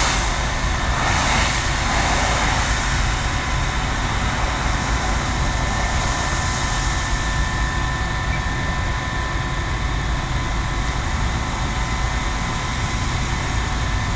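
Gas burning from a damaged gas main: a steady rushing noise that does not let up, with faint steady tones running through it.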